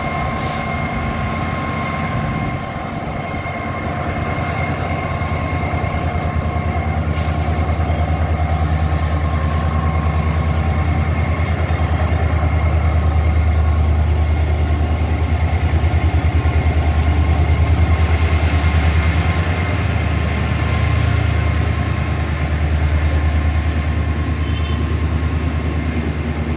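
WDP-4D diesel-electric locomotive's two-stroke V16 engine working hard as it pulls a passenger train away, with a deep throbbing note and steady high tones over it. It is loudest about halfway through as the locomotive goes by, then the coaches roll past.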